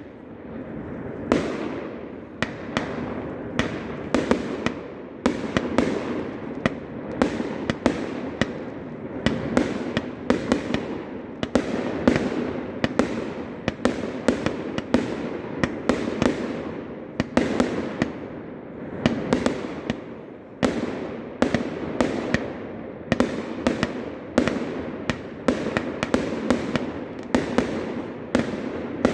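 Fireworks going off in quick succession: sharp bangs about one to two a second, with crackling between them.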